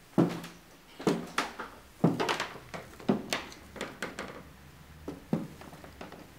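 Footsteps in hard-soled shoes on wooden floorboards: about ten sharp knocks at an uneven pace.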